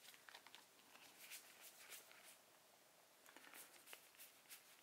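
A string of faint, brief swishes of trading cards sliding against each other as a stack is flipped through by hand.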